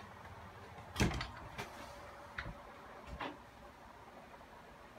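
A few scattered knocks and thuds, the loudest about a second in, over faint room noise.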